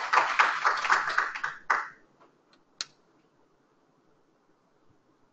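An audience applauding, the clapping dying away about two seconds in. A single sharp click follows about a second later, then only faint room hiss.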